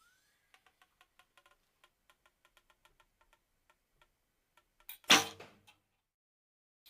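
A horsebow shot: a run of faint, quick ticks for about four seconds, then a sudden loud snap of the released string that dies away within about half a second.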